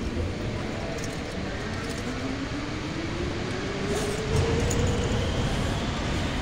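Schindler roped hydraulic elevator car running in its shaft, a steady rumble with a whine that rises in pitch from about two to five seconds in.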